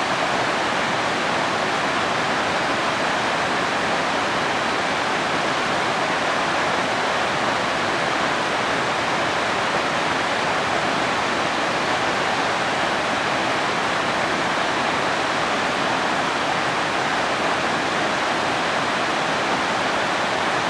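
Small, fast stream cascading over rocks: a steady, unbroken rush of water.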